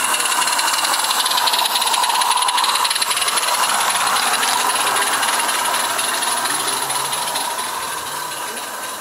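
Small 16mm-scale live-steam garden railway locomotive running past close by: a steady hiss of steam with rapid exhaust beats, loudest a couple of seconds in and fading as it moves away.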